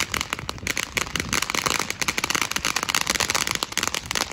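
Ground firework fountain spraying sparks, with a dense, rapid crackling of many small pops going on all the way through.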